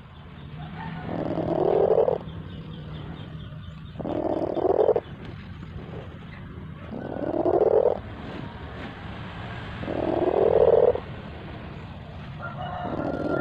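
Domestic cat purring close to the microphone. The purr rises in a rough swell about every three seconds, each swell building for about a second and then stopping abruptly.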